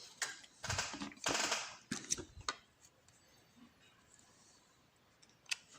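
Handling noise from working on a small pin-tumbler lock with hand tools: two short rustling scrapes in the first two seconds and a few sharp clicks, then near quiet with one more click near the end.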